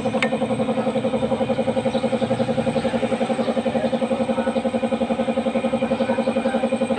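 A small motorcycle engine idling steadily with a fast, even pulse; a short metallic click sounds about a quarter second in.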